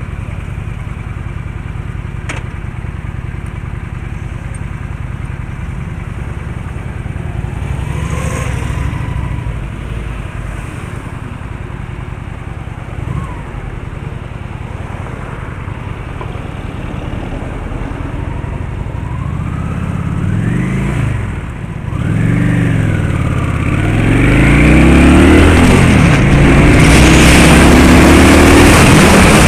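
Motor vehicle engine running steadily, then, about two-thirds of the way through, revving up and down in several sweeps of pitch and accelerating hard with repeated climbs in pitch. It grows much louder toward the end under a rising rushing noise.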